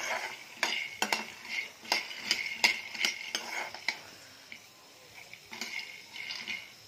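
Steel ladle stirring peanuts as they roast in a kadhai: metal clacking and scraping on the pan with the peanuts rattling, busiest in the first four seconds, then a pause and a few more strokes near the end.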